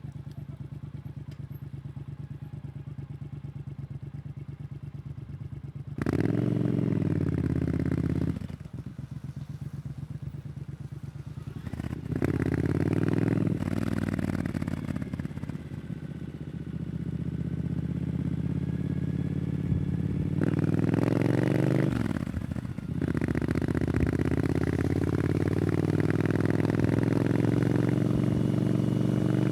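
Triumph Scrambler 900's parallel-twin engine through an Arrow exhaust: it runs steadily at low revs, then pulls away about six seconds in and accelerates through the gears, with the revs rising and dropping at each of about four shifts before a long steady climb.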